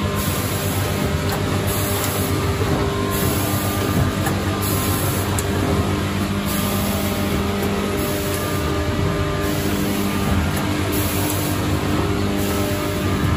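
ATM 920W vertical form-fill-seal packing machine with multihead weigher running, a steady mechanical hum.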